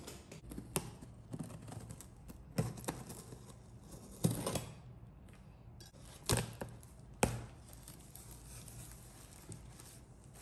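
A taped cardboard carton being opened by hand: packing tape pulled and torn off and the flaps folded back, with a few sharp cardboard knocks and some rustling and scraping between them.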